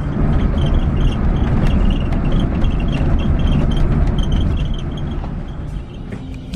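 Scania K410iB bus running on the road: a steady low rumble of engine and road noise, with faint music and short high chirps over it.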